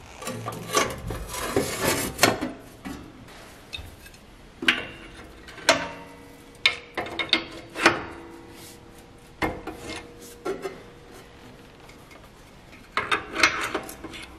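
Sheet-steel box casing scraping and rubbing against the press frame, then a run of sharp metal clanks, each ringing briefly, as an adjustable wrench works the casing's bolts, with a quick cluster of clanks near the end.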